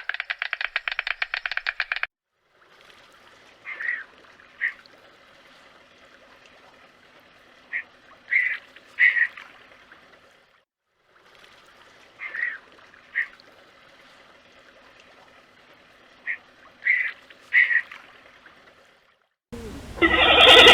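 A rapid, dense rattling for about the first two seconds. Then short duck-like bird calls, a few at a time over a faint steady background hiss, with the same run of five calls heard twice. A louder new sound starts near the end.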